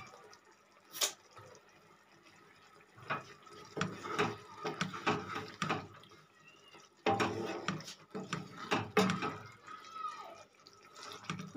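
Wooden spatula stirring thick, bubbling grape and jaggery chutney in a frying pan: a run of short wet clicks and scrapes in two spells, one about three seconds in and one about seven seconds in. A single sharp knock sounds about a second in.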